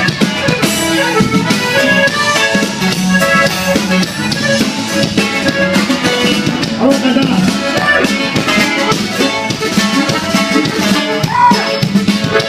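Norteño band playing an instrumental passage, an accordion carrying the melody over a steady beat.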